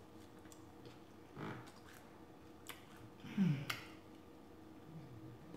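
Mouth sounds of eating: soft chewing with small lip and tongue clicks, and a short, falling 'mmm' of enjoyment about three and a half seconds in, the loudest sound.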